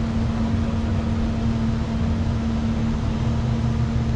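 Vehicle engine running steadily, a constant low rumble with a steady hum just above 200 Hz.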